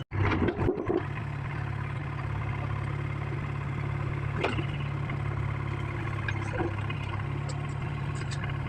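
Excavator diesel engine idling steadily, with a single sharp click about halfway through.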